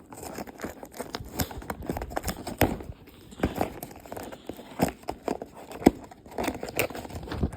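Cardboard box packaging being pulled and torn open by hand: irregular ripping, crinkling and knocks of cardboard and tape.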